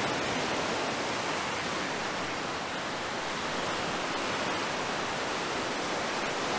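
Small waves breaking and washing up on a sandy shore: a steady, even rushing of surf.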